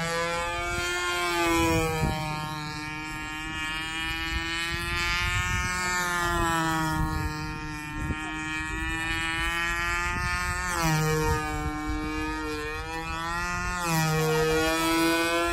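Radio-controlled model aerobatic airplane's engine and propeller droning in flight, its pitch rising and falling several times as the throttle changes and the plane passes.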